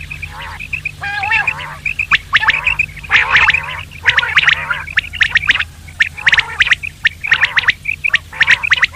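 Common quail calling over and over in quick, rasping bursts of short notes, with a steady low hum beneath.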